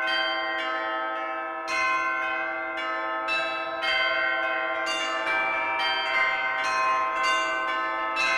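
Peal of several church bells ringing in sequence, each strike ringing on under the next. The strikes come about a second apart at first and quicken to roughly two a second after the midpoint.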